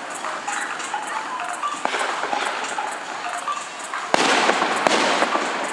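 Fireworks display: a continuous crackle of bursting shells, with a sharp crack about two seconds in and a louder bang about four seconds in, followed by another crack just under a second later.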